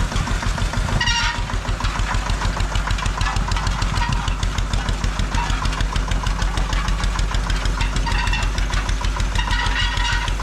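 The 1952 McDonald road roller's 4-horsepower stationary-type engine running steadily, with a rapid, even beat.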